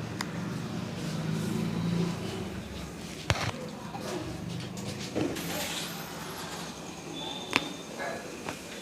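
Street traffic noise, with a low engine rumble during the first three seconds. A few sharp clicks stand out, the loudest about three seconds in and again about four seconds later.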